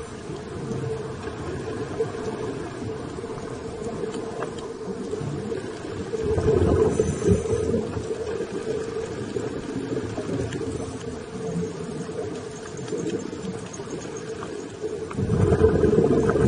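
Muffled underwater noise from a scuba dive, recorded with the camera under water. Two louder surges of bubbling come from a diver's regulator exhaling, one about six seconds in and one near the end.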